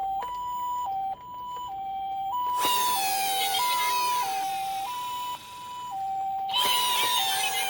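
Toy minicar's electronic siren sounding the two-tone hi-lo Japanese ambulance pattern, alternating evenly between a higher and a lower beep. From about two and a half seconds in, a loud rattling whir of small toy cars rolling down a slope joins it, breaking off briefly near the end and starting again louder.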